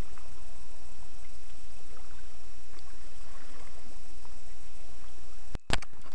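Steady low rumble and hiss of a kayak on flowing creek water. Near the end the sound cuts out for a moment and a sharp click follows.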